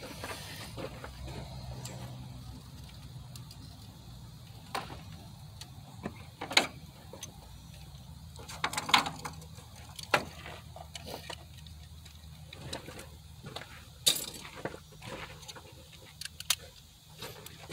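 Hand tools working on the engine: scattered sharp metallic clicks and clanks of sockets and wrenches, a dozen or so at uneven intervals, the loudest about six and nine seconds in.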